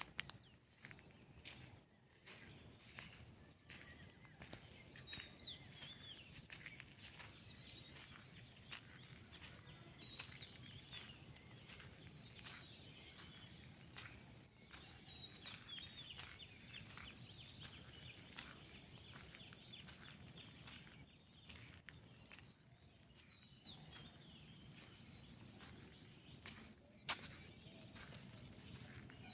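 Faint outdoor ambience of small birds chirping, with many short high calls scattered over a low, steady background rumble. A single sharp click sounds near the end.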